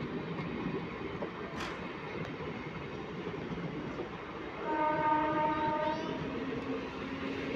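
Indian Railways MEMU electric train passing close by with a steady rumble of wheels on the track. About two-thirds of the way through, a train horn sounds once, a steady chord lasting just over a second.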